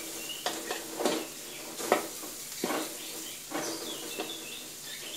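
Metal spatula scraping and knocking against a wok as red curry paste and pork belly cubes are stir-fried, with a light sizzle underneath. The strokes come unevenly, about once a second; the curry paste is being toasted until fragrant.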